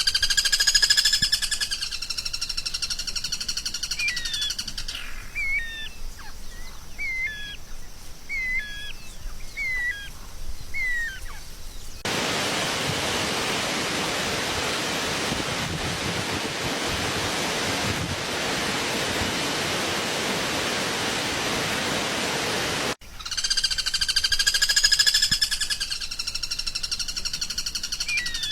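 Recorded songbird song: a buzzy trill, then a run of short, quick, whistled chirps that bend up and down, then about ten seconds of steady even hiss. After an abrupt cut, the same trill starts again.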